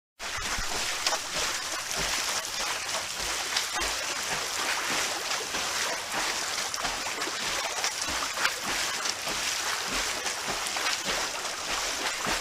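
Swimming-pool water being churned by swimmers: a steady wash of splashing with many small, sharp splashes throughout, cutting in suddenly at the start.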